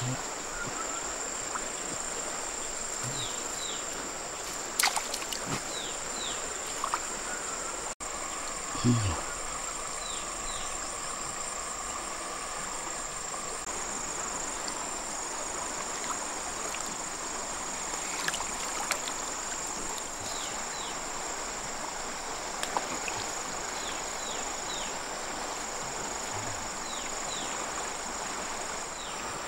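Insects shrilling in a steady high-pitched drone, with short falling chirps in twos and threes every few seconds and a couple of dull knocks about five and nine seconds in.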